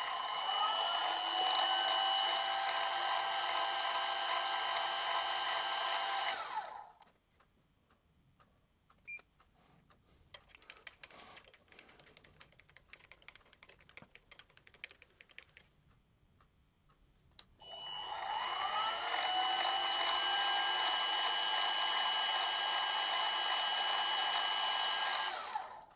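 Milling machine spindle running with a steady whine, spinning an edge finder to locate a centre line; it runs down and stops about seven seconds in. After some faint clicks, the spindle starts again, its whine rising as it speeds up, runs steadily and stops just before the end.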